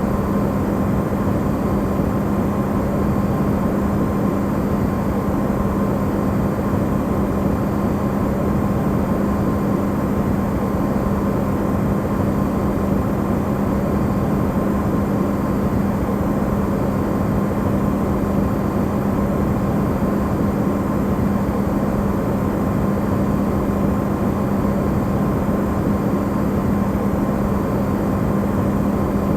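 Electrolux refrigerator running, amplified: a steady, unchanging hum with a low drone and a fainter higher tone over an even rushing noise.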